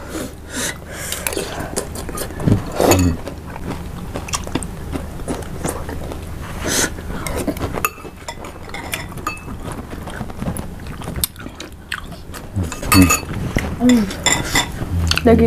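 Close-miked eating: chewing and biting meat off beef bones, with metal spoons clicking against ceramic soup bowls and short murmurs in between.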